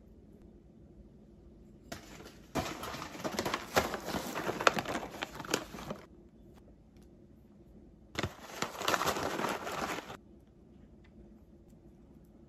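Kraft-paper granola pouch crinkling and rustling as it is handled, in two bursts of about four and two seconds full of sharp crackles, each starting and stopping abruptly; between them only faint room tone.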